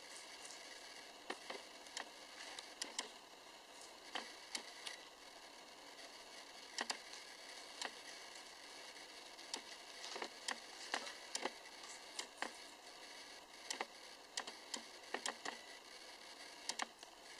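Guinea pig biting and chewing lettuce: irregular sharp crunches, sometimes several in quick succession, over a faint steady hiss.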